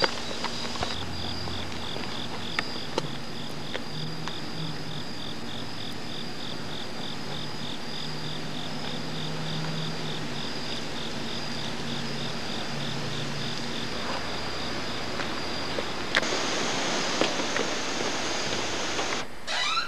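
Crickets chirping: a steady high trill with regular, evenly spaced chirps that stop about fourteen seconds in, after which a steady hiss takes over.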